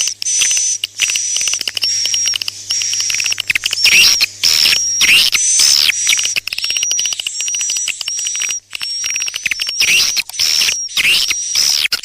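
Recorded swiftlet calls: a fast, continuous run of high chirps, each a short held whistle that breaks into quick downward twitters, in the style of the lure tracks played in swiftlet houses to draw birds in to nest.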